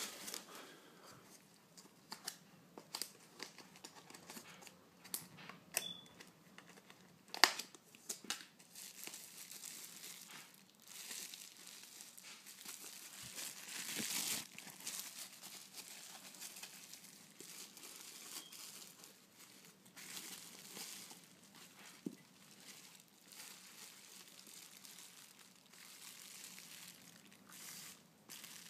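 Packing material being pulled out of a cardboard parcel: on-and-off crinkling, rustling and tearing, with scattered sharp clicks and one louder knock about seven seconds in.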